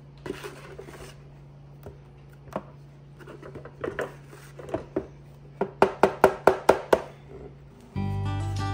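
Scattered light knocks and taps, then a quick run of about eight sharp knocks in a second around the middle, over a steady low hum. Acoustic guitar music comes in near the end.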